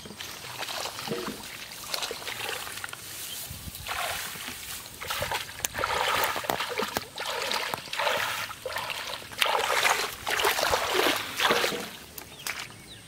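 Hands splashing and sloshing in shallow muddy water, in irregular bursts that are heaviest from about four seconds in until near the end.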